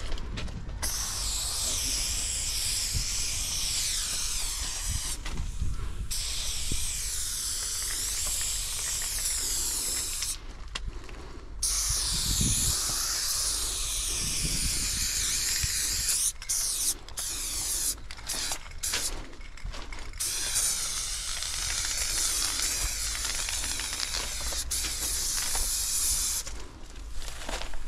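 Aerosol spray-paint can hissing as paint is sprayed in long passes of several seconds each, broken by brief pauses, with a run of short quick bursts about two-thirds of the way through.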